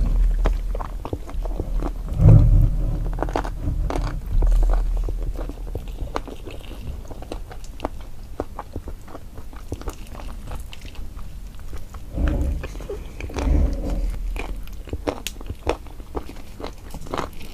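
Close-miked chewing and biting, with many small mouth clicks, as meat is eaten off a boiled animal head. A few low thumps stand out, the loudest about two seconds in.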